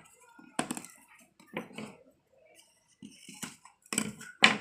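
Rolled paper tubes and scissors being handled on a table: a series of sharp clicks and knocks with short gaps, the two loudest near the end.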